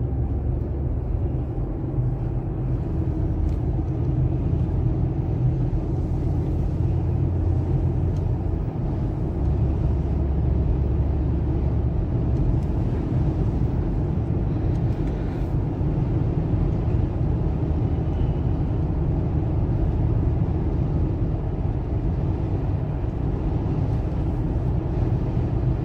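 Steady low rumble of a car heard from inside the cabin: engine and road noise while driving.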